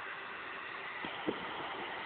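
Steady hiss of wind on the microphone, with one short knock about a second and a quarter in.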